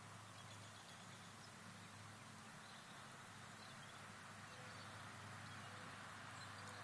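Near silence: faint, steady outdoor background hiss with a low hum, and no distinct call or event.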